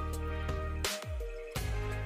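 Background music: sustained instrumental tones with a few percussive strikes and a low note sliding downward about halfway through.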